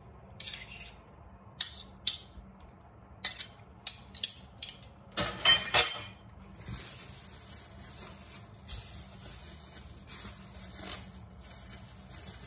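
A metal spoon scraping and tapping through sticky chocolate biscuit mixture on a plastic bag, with a few sharp clinks, the loudest about five to six seconds in. After that, a thin plastic freezer bag rustles and crinkles steadily as it is folded over the mixture.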